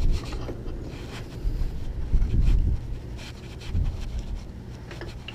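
Low rumbling thumps and handling noise on the microphone, with a few light clicks, as a timing belt tensioner is worked into a tight spot on a Chrysler 3.5L V6.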